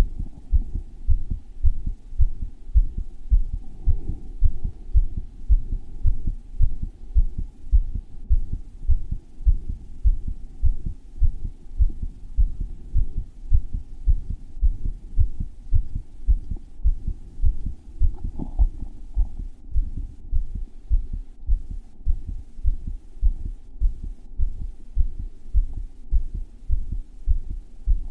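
A man's heart beating hard and thumpy, picked up by a microphone strapped against his chest: a steady, even run of deep beats.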